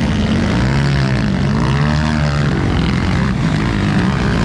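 Dirt bike engines running loudly, their revs rising and falling over and over.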